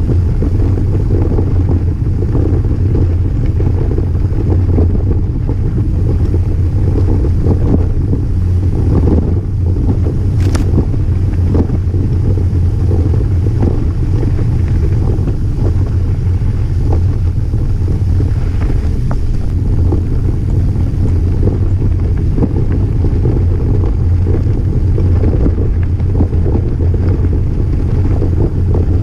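Wind buffeting the microphone of a camera riding along a gravel dirt track, a steady heavy rumble, with small rattles and knocks from the rough ground.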